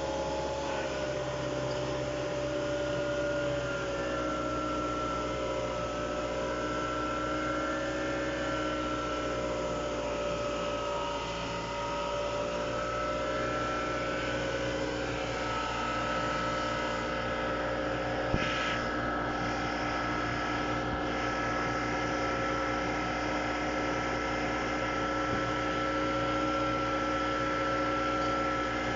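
Car engine idling with the air-conditioning system running during a refrigerant charge: a steady mechanical hum with several held tones that waver slightly. A single short click about two-thirds of the way through.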